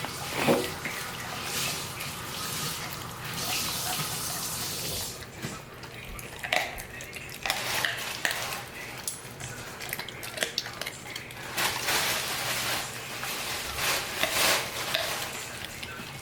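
A large dog chewing a raw chicken drumstick: irregular wet crunching and smacking.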